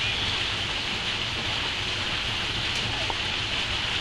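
Steady rushing hiss of flowing creek water, with a low rumble underneath.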